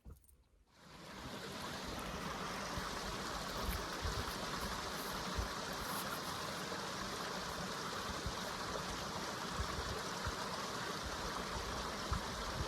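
Steady rush of flowing water in a stream, fading in about a second in, with occasional low thumps.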